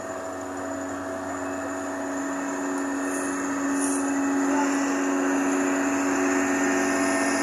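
Roadtec RP-180-10 asphalt paver's diesel engine running steadily with a droning hum, growing louder from about four seconds in.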